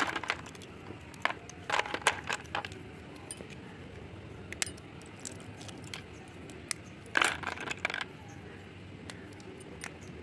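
Broken slate pencil sticks clinking and rattling against each other in a plastic bowl as hands stir and scoop them. The clatter comes in short bursts about two seconds in and again about seven seconds in, with scattered single clicks between.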